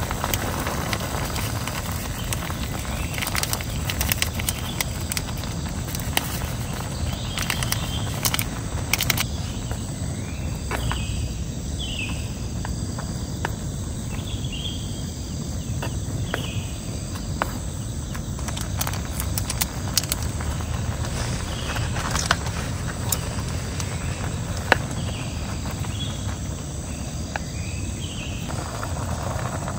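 Outdoor campsite ambience: insects buzzing steadily under a low rumble, with short high chirps repeating in runs through the middle and near the end. Scattered sharp clicks and taps sound throughout.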